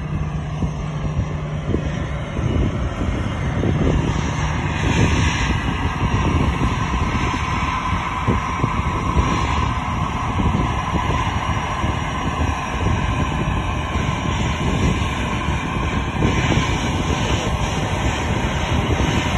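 Jet engines of a StarFlyer Airbus A320 taxiing at low power: a steady rumble and hiss with a faint whine that grows a little stronger midway.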